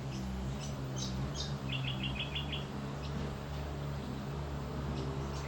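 Small birds chirping, with a quick run of about seven notes near the middle, over a steady low hum.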